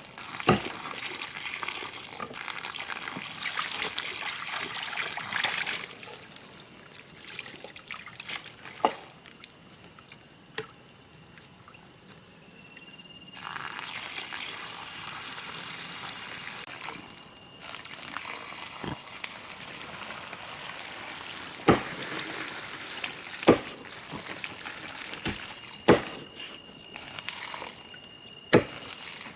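Water splashing and trickling in stretches, with about half a dozen sharp knocks scattered through.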